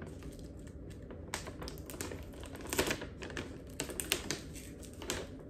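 A sealed plastic snack pouch crinkling and crackling as it is pulled and twisted by hand: a run of irregular crinkles starting about a second in. The bag is hard to open and resists tearing.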